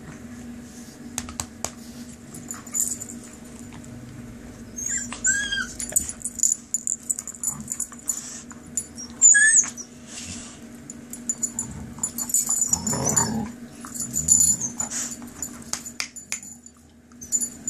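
Puppies and a larger dog play-wrestling, with short high-pitched yelps about five and nine seconds in, a rougher growl-like burst about thirteen seconds in, and scattered sharp metallic clinks of collars and tags.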